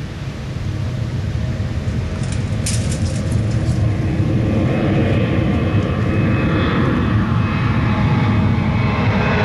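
Boeing 737-700's twin CFM56-7B turbofan engines at takeoff power, a low rumble that grows steadily louder over the first few seconds as the jet climbs toward and over the listener, then holds loud.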